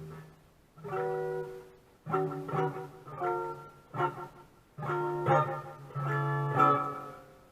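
Monoprice Mini Cali electric guitar played clean on its bridge pickup: a short run of about six picked chords and notes with a bright, twangy tone, the last one ringing out and fading near the end.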